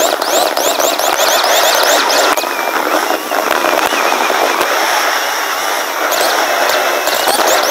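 Skateboard wheels rolling fast over pavement: a steady, loud, rough rush with many short high chirps over the top.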